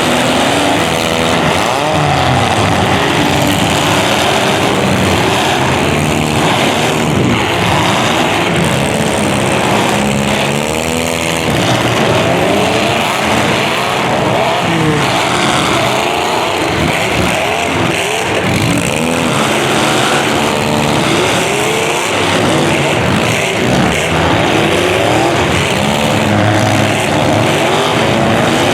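Several demolition derby cars' engines running and revving at once, their pitches rising and falling over and across each other.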